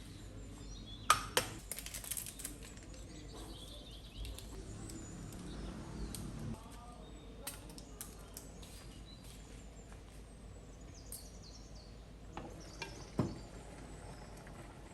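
Quiet kitchen handling sounds: a few sharp clinks and knocks of kitchenware, loudest about a second in and near the end, over faint room noise with birds chirping now and then.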